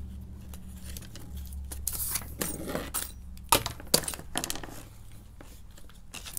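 Clicks and rattles of small plastic and metal parts being handled on a wooden workbench as a flex shaft is threaded onto a WEN rotary tool, with two sharp clicks about three and a half and four seconds in.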